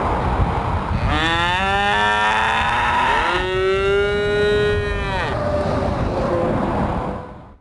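Young black calves bawling: two long moos, one after the other, the second a little higher in pitch, over steady wind noise on the microphone.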